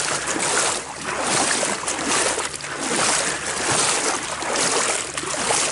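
Wind rushing over the microphone, with water splashing as startled carp bolt through the shallows.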